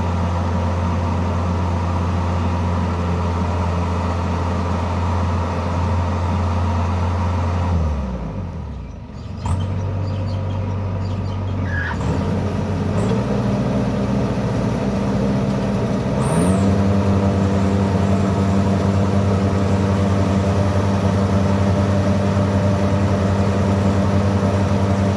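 Heavy machine engine running steadily. About eight seconds in it slows sharply and nearly stalls, then picks up again and revs up in steps to a higher, steady speed.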